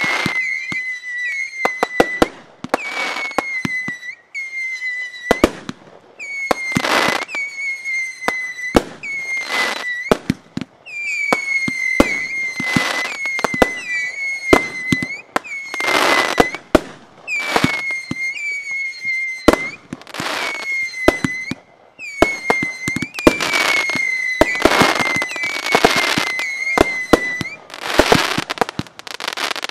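Fireworks finale: a rapid, near-continuous run of aerial shell bursts with sharp bangs and crackling hiss. Through it run repeated high whistles, each about a second long, dipping slightly in pitch.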